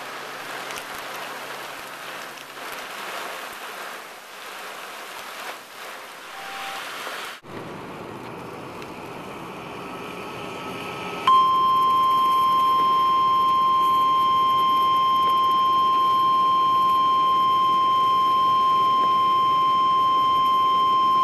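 Rain drumming on the car. After a cut about seven seconds in, a NOAA Weather Radio warning alarm tone comes in loud and steady for about ten seconds: the alert signal that introduces a National Weather Service severe thunderstorm warning broadcast.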